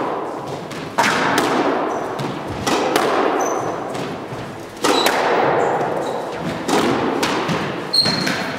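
Squash rally: sharp cracks of the ball off the racket strings and the front and side walls, roughly every one to two seconds, each ringing on in the court's echo. Brief high squeaks come between the hits.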